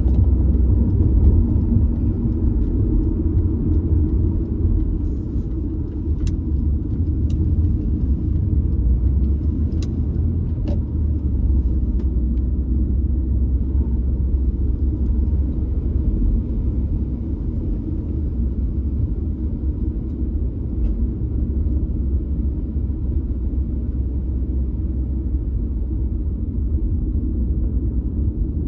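Car driving along a city street, heard from inside: a steady low rumble of engine and tyre road noise, with a few faint clicks in the first half.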